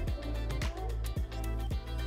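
Background music with a steady kick-drum beat, about two beats a second, over a held low bass.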